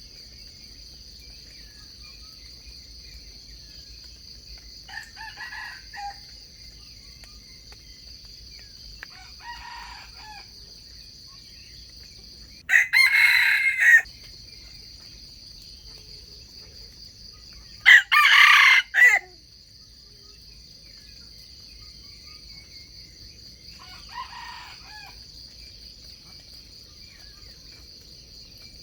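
Wild junglefowl roosters crowing: two loud, close crows about 13 and 18 seconds in, and fainter crows about 5, 10 and 24 seconds in, over a steady high-pitched drone.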